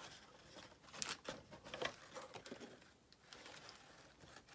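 A Funko Pop cardboard window box handled and turned over on a table: faint scattered taps, scrapes and rustles, with a cluster of small knocks between about one and two seconds in.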